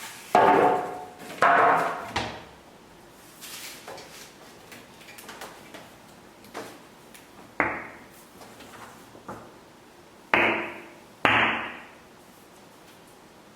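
Five sharp knocks, each with a short ringing tail: two close together near the start, one a little past the middle, and two close together near the end.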